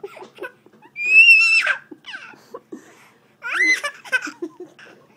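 Baby boy laughing hard: strings of short breathy chuckles broken by two high-pitched squeals, one about a second in and another just past the middle.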